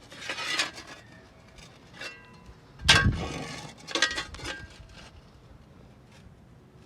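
Several metallic clinks and clanks, with one heavy thud about three seconds in.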